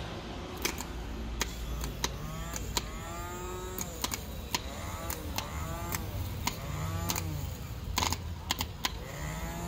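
Sharp metal clicks and taps, a dozen or so at uneven intervals, as the parts of a Maruti Suzuki Alto 800 starter motor are handled and fitted together. Behind them are a steady low hum and a faint sound that rises and falls about five times.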